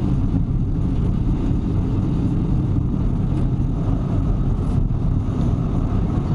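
Steady low rumble of a diesel train running slowly at about 15 km/h with its brakes released, heard from the driver's cab. It cuts off suddenly at the end.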